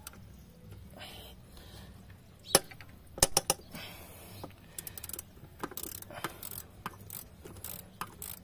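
Ratchet with a 10 mm socket loosening the lower bolt of a throttle body: sharp clicks, the loudest about two and a half to three and a half seconds in, then a quicker run of ratchet clicks.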